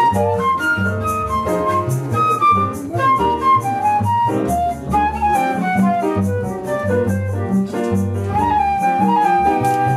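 Live small-group jazz: a flute plays the lead melodic line over upright double bass and piano accompaniment.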